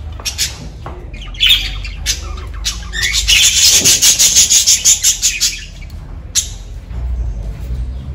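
Caged budgerigars chirping and squawking: a few single chirps, then a fast run of sharp chattering calls, about five a second, in the middle, and one more call near the end.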